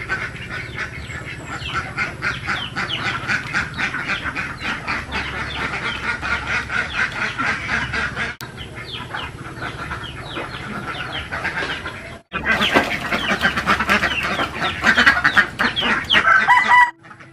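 A flock of domestic ducks quacking in a rapid, continuous chatter. The sound cuts off abruptly about eight seconds in and again about twelve seconds in, and is louder after the second break.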